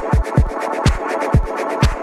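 Electronic dance music with a steady, deep kick drum about twice a second and ticking hi-hats between the beats.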